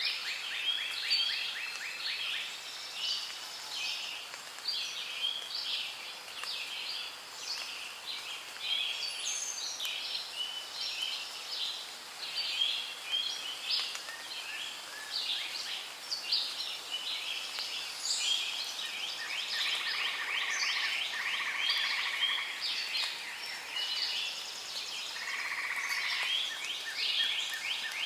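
Rainforest ambience: a dense chorus of animal calls, many short chirps and rapid trills overlapping, mostly birds, with longer trills standing out about two-thirds of the way through and again near the end.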